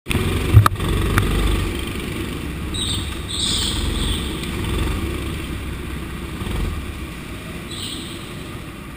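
Go-kart engine running and pulling as the kart laps, heard from on board. A sharp knock comes just after the start, and short high squeals, typical of kart tyres sliding on the polished concrete, come about three and a half seconds in and again near the end.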